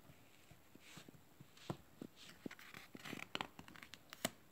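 Pages of a hardcover picture book being turned by hand: faint paper rustles and small clicks, with a sharper tap near the end.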